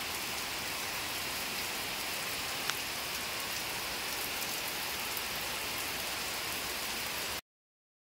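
Heavy monsoon rain pouring down steadily onto trees and a flooded paved courtyard, a dense even hiss. It cuts off suddenly shortly before the end.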